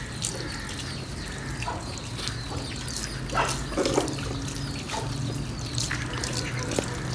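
Water running from a tap and splashing, with scattered small knocks and clicks, as in washing up under the tap.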